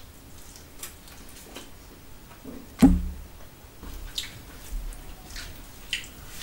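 Close-miked eating sounds: wet chewing and smacking of a mouthful of rice and chicken curry eaten by hand, with fingers squishing rice and gravy in a steel plate. One sharp thump just under three seconds in is the loudest sound.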